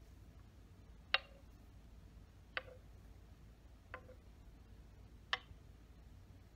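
Four sharp, evenly spaced ticks, about one every one and a half seconds, each with a brief ring, over faint background hiss.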